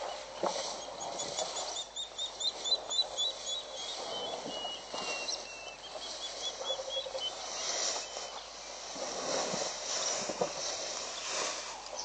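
A bird calling: a quick run of short, high repeated chirps lasting about two seconds, then several lower whistled notes. Behind it is a steady outdoor hiss with a few soft rustles and knocks.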